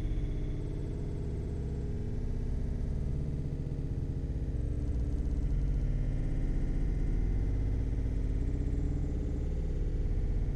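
Low, steady synthesizer drone in the background music.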